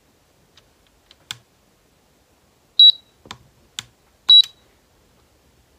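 Digital LED clock giving two short, high beeps about a second and a half apart as its setting buttons are pressed, with a few light clicks in between.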